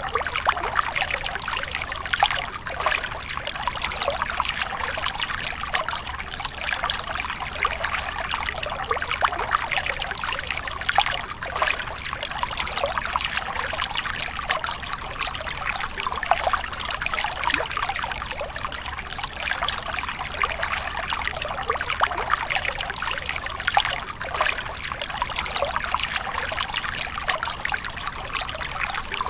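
A thin stream of water trickling and splashing down between rocks into shallow water, a steady patter of small splashes.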